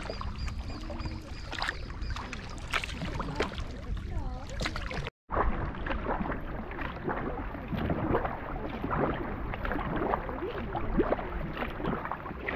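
Kayak paddling on calm water: paddle blades dipping and splashing in irregular strokes, with water sloshing along the hull and a low rumble of wind on the microphone. The sound cuts out for a moment about five seconds in.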